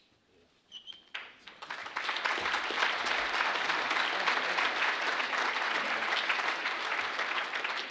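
Audience applause: quiet at first, then clapping starts about a second in and quickly builds to full, steady applause. A short high tone sounds just before the clapping begins.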